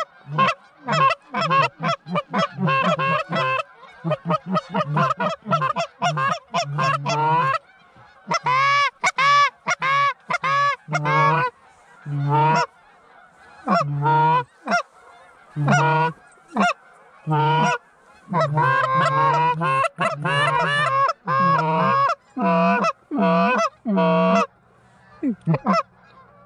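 Goose calls blown by hunters: a fast, loud run of honks and clucks with a few short pauses, calling to geese coming in over the decoys.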